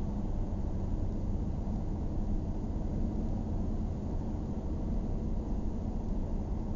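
Steady low rumble of a car on the move, heard from inside the cabin: engine and tyre noise, with no sudden sounds.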